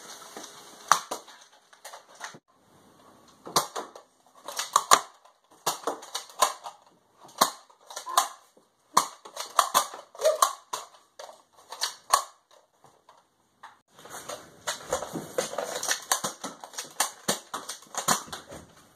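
Nerf blasters and darts: a string of sharp plastic clicks and knocks in uneven clusters, with short silent gaps.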